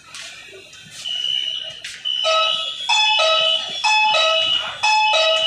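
Metro train's door warning alarm: a loud electronic beeping that alternates between a low and a high note about once a second, starting about two seconds in.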